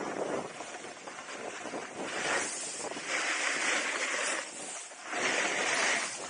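Skis scraping over packed snow through turns: three surges of hiss, about two, three and five seconds in, over a steady rush of wind on the microphone.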